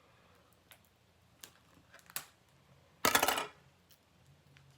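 Plastic toy packaging being handled and pried open: a few light clicks and taps, then a loud half-second crackle of plastic about three seconds in.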